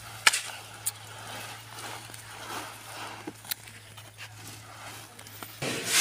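Shovel scraping and tossing sand and gravel against an inclined sand sieve, with a few sharp clicks of the blade on stones over a low steady hum. A louder rush of noise comes in near the end.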